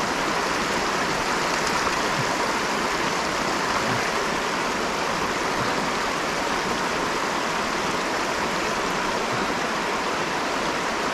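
Steady rush of a small river's current running over stones.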